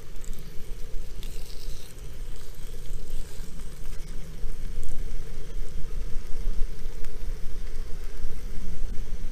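Back bacon rashers sizzling in a frying pan on a portable stove, with gusting wind rumbling on the microphone.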